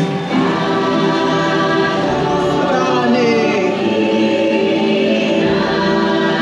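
A choir sings a slow, sustained chant-like melody with many voices together: the ride's choral soundtrack, sung in the invented Na'vi language.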